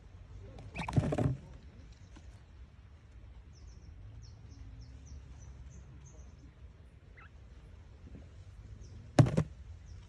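A thump with a brief rustle about a second in and a sharper single thump near the end, over a low steady hum. In between comes a run of faint, short, high quail chirps.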